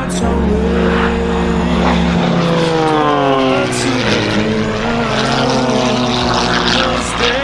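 Propeller aircraft flying past, its engine note falling in pitch about halfway through, mixed with background music that has a steady bass line.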